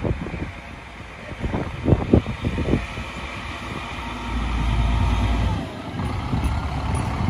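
Harz narrow-gauge diesel railcar passing close by, its engine running with a low rumble that swells for a second or so as it goes past. A few knocks come about two seconds in.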